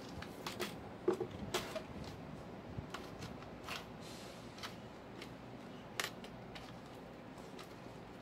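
Scattered light clicks and taps from a keyboard being handled and worked on, most of them bunched in the first two seconds, with one sharp click about six seconds in.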